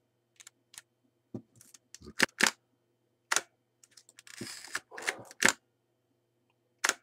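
A Kiev-6S medium-format SLR being worked by hand: a series of sharp mechanical clicks and clacks from its diaphragm and shutter mechanism, the loudest a little after two seconds, at about three and five and a half seconds, and just before the end, with a brief rasping stretch in between. The mechanism is running as it should after servicing.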